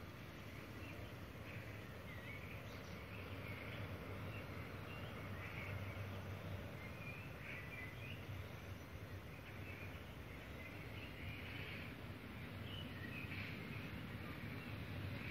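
Small birds chirping now and then over a low, steady rumble that slowly grows louder as a train approaches from far down the line.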